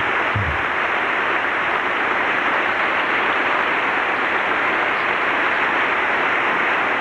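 Sustained applause from a large crowd in a big hall, many hands clapping in a steady, unbroken din.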